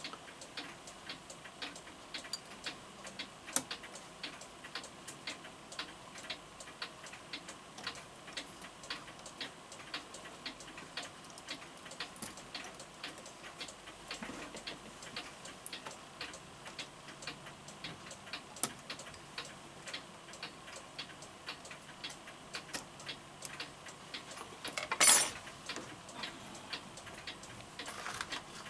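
Florenz Kroeber mantel clock of about 1868 ticking steadily, its repaired movement running. There is one louder brief knock near the end.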